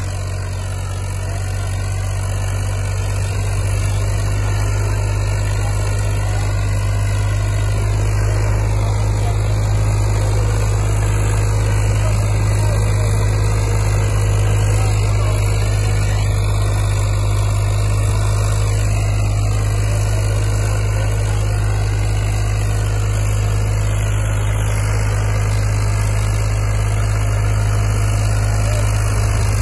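Powertrac Euro 50 tractor's three-cylinder diesel engine running steadily under load as it pulls a pair of disc harrows, a deep even drone that grows slightly louder in the first few seconds.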